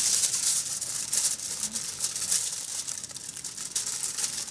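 Aluminium foil crinkling as hands fold and press it around a fish wrapped in banana leaf, a dense crackle that starts suddenly.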